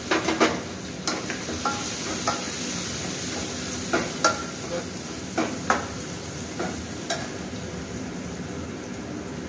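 Steel spoon stirring and scraping in a metal kadhai of food frying in oil on a gas stove, over a steady sizzle. The spoon clinks against the pan about ten times with a brief metallic ring, the clinks thinning out after about seven seconds.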